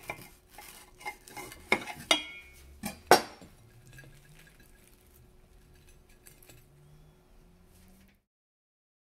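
A white ceramic plate being handled as the sandwich is picked up from it: several sharp clinks and knocks in the first three seconds, the loudest about three seconds in, then faint rustling and handling. It cuts to silence about a second before the end.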